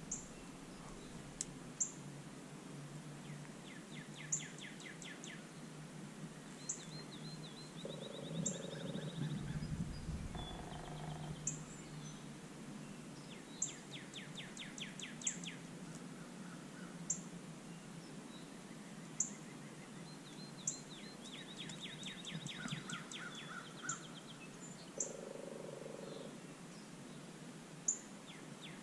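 Faint songbirds calling and singing: short high chirps every second or two and several rapid trills, with a lower call twice.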